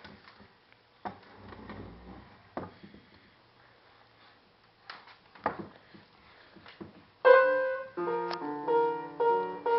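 A few scattered light knocks and taps, then from about seven seconds in piano keys sounding in loose, irregular clusters of notes, struck by a baby parrot stepping on them.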